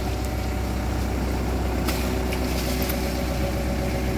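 Hitachi Zaxis 110 excavator's diesel engine idling steadily.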